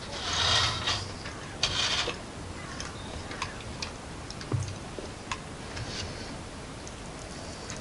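Light table-top handling of food and a knife: two short rustling, scraping noises in the first two seconds, then scattered, irregular small clicks and taps.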